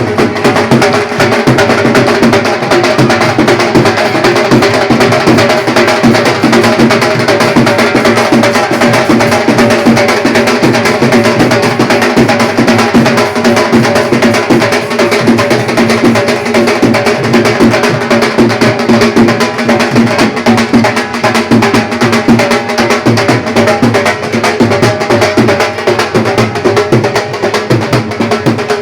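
Loud, fast, steady drumming with sustained droning notes held underneath.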